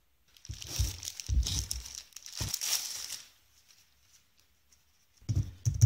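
Clear plastic wrapping rustling for about three seconds as it is handled and pulled off a compact keyboard. After a short quiet, the keys start clicking near the end.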